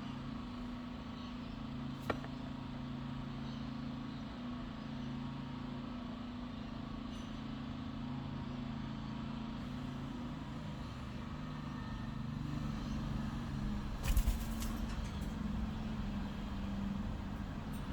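A steady low mechanical hum, with a sharp click about two seconds in and a brief thump near fourteen seconds.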